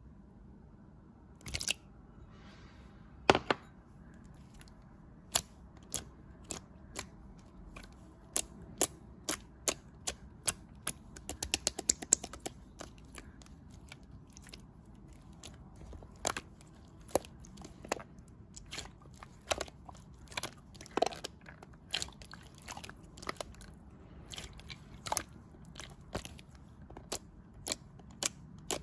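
Irregular sharp clicks and crunches, dozens of them, some single and some in quick clusters, the densest run a little before the middle.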